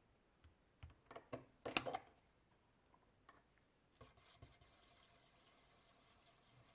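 Lid of a small metal paint tin being prised off: a cluster of small metallic clicks and knocks about a second in, loudest near two seconds. From about four seconds, faint scraping of a stirring stick in the paint inside the open tin.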